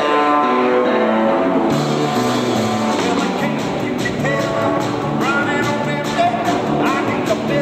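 Live rock band playing: electric guitar over a drum kit, opening with a quick descending run of notes.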